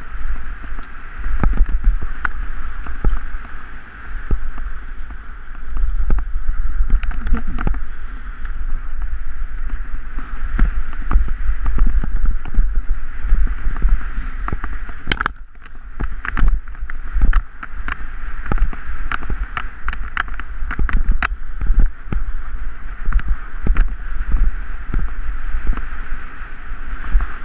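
Dog scooter rolling fast over a dirt trail and then grass, with many short clicks and knocks from the frame and wheels over bumps. A heavy low rumble of wind hits the handlebar camera's microphone.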